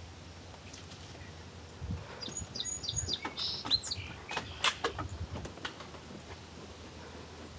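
Chipmunk squeaking: a quick run of high-pitched chirps, some sliding down in pitch, about two seconds in, followed by a scatter of sharp clicks.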